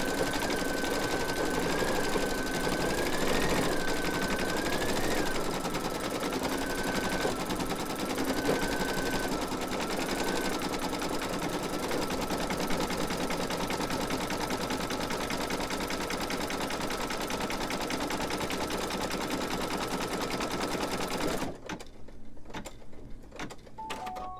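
Computerized embroidery machine stitching free-standing lace: a steady whirr with a whine that steps and slides up and down in pitch as the stitching speed changes. It stops suddenly about three seconds before the end, with the thread colour finished.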